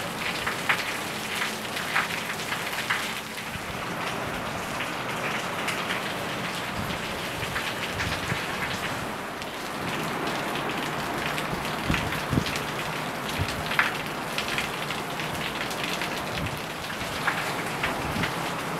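Steady heavy hurricane rain pouring down and pattering on surfaces, with sharper close drips and splats standing out every few seconds.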